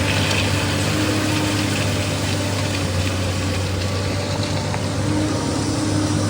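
SANY excavator's diesel engine running steadily, with a higher tone that comes and goes over its low hum.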